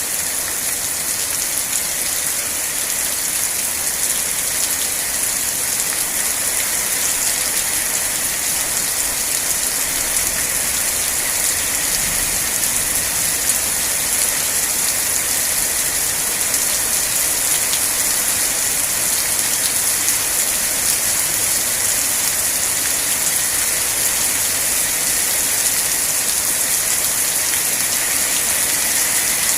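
Steady rain falling on a surface, an even hiss of many small drops with no let-up.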